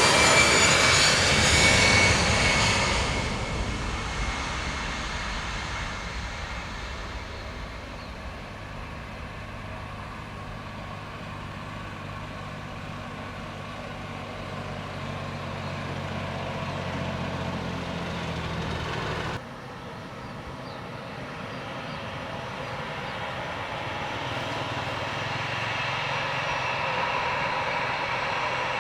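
Airliner engine noise, loud and with a slightly falling whine as an aircraft passes close, then fading over several seconds into a lower steady hum. After a sudden cut about two-thirds through, another aircraft's engine noise builds gradually.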